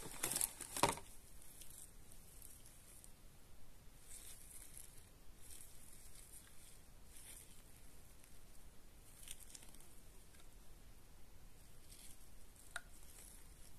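Cardboard packaging rustling and scraping as gloved hands pull the power adapter and its coiled cable out of the box, loudest in the first second. After that, faint scattered handling rustles and one small click near the end.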